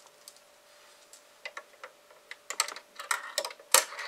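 Hands handling a LEGO model: irregular small plastic clicks and taps, sparse at first, then coming quickly in the last second and a half.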